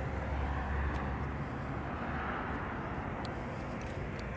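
Steady outdoor background noise: a low rumble and hiss with a few faint ticks, the deepest part of the rumble falling away about a second in.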